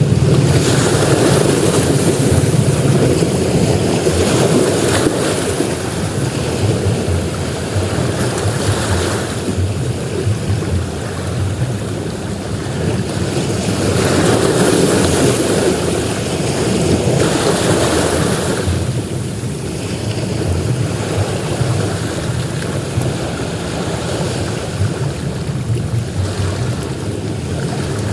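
Ocean surf breaking on a beach: a continuous rushing wash that swells and ebbs as each wave comes in, every few seconds.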